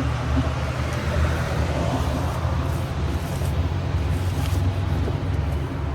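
A large engine idling steadily, an even low rumble with no change in speed.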